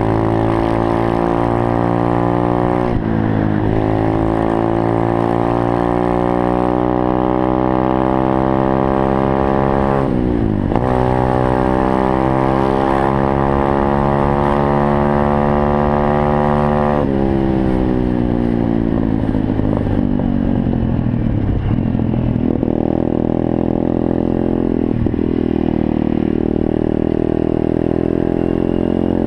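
125cc single-cylinder four-stroke pit bike engine heard from on board, accelerating through the gears. Its pitch climbs, drops at a gear change about 3 seconds in and again about 10 seconds in, and climbs again each time. From about 17 seconds in it falls away as the throttle is rolled off, then runs lower and steadier.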